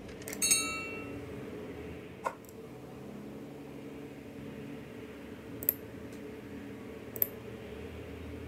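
Sound effects of a subscribe-reminder animation: a short bright ringing tone about half a second in, then single sharp clicks of the like and subscribe buttons being pressed, about two, five and a half and seven seconds in, over a steady low hum.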